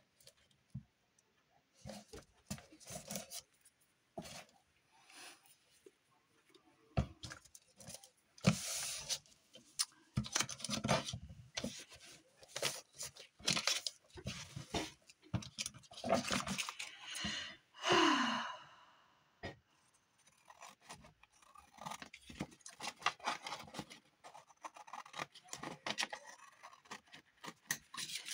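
Paper and cardboard packaging being worked by hand: an irregular run of rubbing, scraping and tearing sounds with scattered clicks and taps, busiest in the middle.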